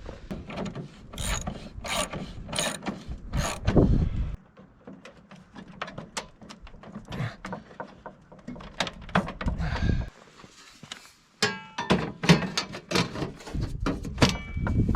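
Mechanical clicking, knocking and rubbing of hand tools at work, in short spliced segments.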